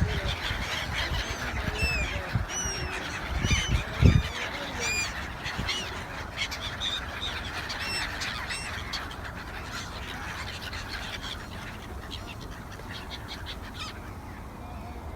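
A flock of gulls calling: many short, overlapping calls, busiest for the first several seconds and thinning out toward the end. A couple of low thumps come about four seconds in.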